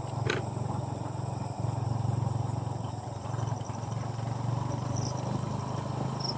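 Crickets and other night insects calling steadily, with a pulsing chirp joining in about two-thirds of the way through, over a steady low hum.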